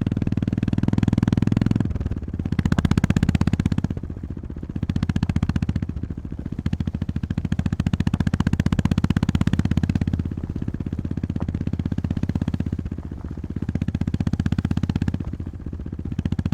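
Honda GB350S's air-cooled single-cylinder engine running under way, its firing pulses even throughout. The throttle is opened and rolled off several times, the engine note swelling and dropping back in turn.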